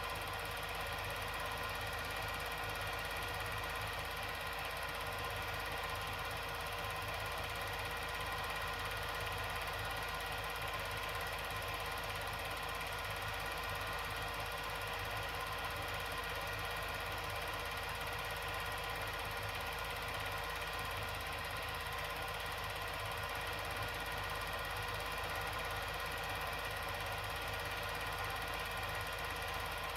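A steady mechanical whir with a constant hum and several fixed tones, unchanging throughout.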